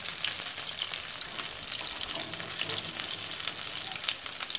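Chicken pieces frying in hot vegetable oil in a pan while being browned: a steady sizzle with many small crackles.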